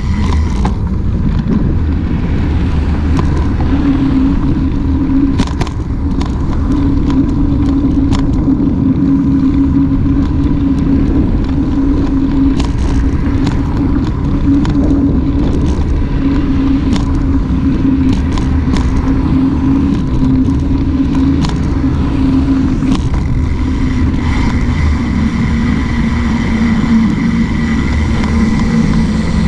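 Wind rushing over a handlebar-mounted camera's microphone, with tyre and road rumble, as a mountain bike is ridden along a sidewalk. A steady low hum runs under it, and scattered sharp clicks and knocks come from the bike.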